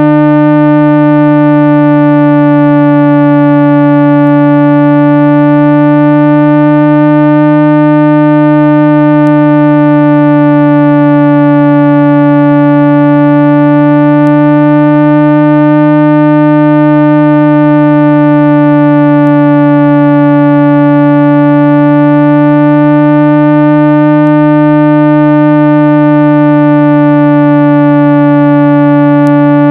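Continuous 165 Hz speaker-cleaning tone: a loud, steady low electronic hum with a strong octave and many overtones, whose upper overtones waver slowly. It is played to make a phone speaker's membrane vibrate and shake dust out of the speaker grille.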